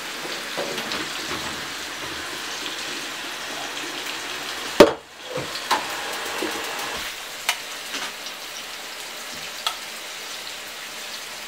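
Steady frying sizzle, with clinks and knocks of a pot and strainer as boiled potatoes are drained of their water and tipped into a bowl. One loud knock comes about five seconds in.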